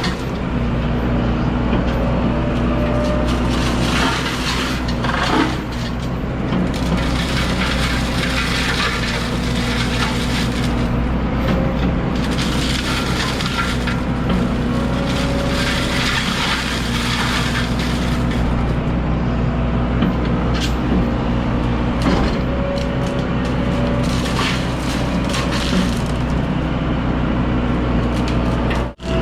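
Heavy diesel machine running steadily under load while a forestry mulcher head grinds through brush, with irregular crackling and snapping of wood being shredded.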